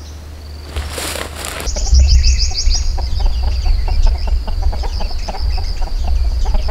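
Free-range chickens: a burst of wing-flapping about a second in, then a quick run of high chirps, over a steady high drone of insects.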